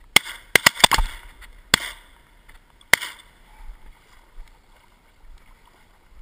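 A quick run of about eight sharp cracks or knocks in the first three seconds, then faint water sloshing as a retriever swims among duck decoys.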